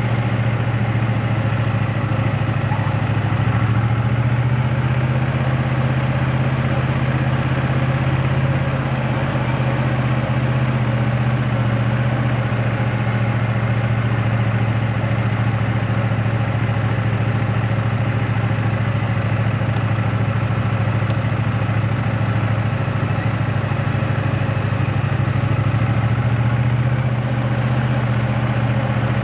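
2024 Triumph Bonneville T100's 900 cc parallel-twin engine running at a steady low speed, its pitch stepping up slightly a few seconds in and settling back down near the end.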